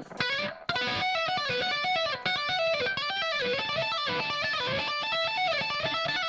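Electric guitar solo played with fast tapping: quick, stepping runs of notes over the band, coming in at full level just under a second in.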